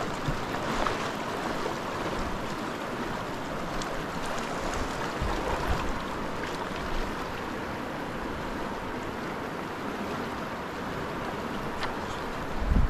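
River water rushing steadily over rocks, with the South Platte running slightly high. A brief low thump near the end.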